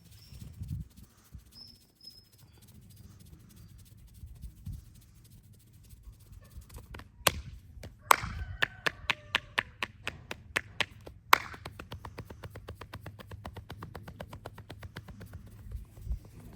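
Percussive hand massage: a masseur's hands slapping and tapping on a client's body. Two sharp slaps come first, then a run of slaps about four a second, one loud smack, and then a long run of faster, lighter taps.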